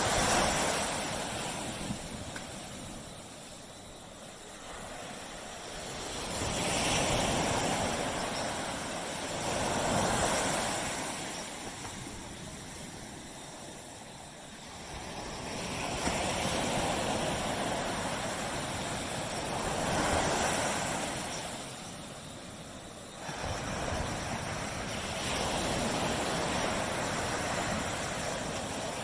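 Waves breaking and washing on a tropical beach, each surge swelling and then ebbing every few seconds, with a sudden rise about three-quarters of the way through.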